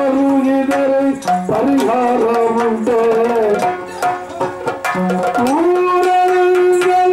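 Yakshagana himmela music: a singer holding long notes that slide between pitches, over drum and cymbal strokes. The held note steps up a little past halfway.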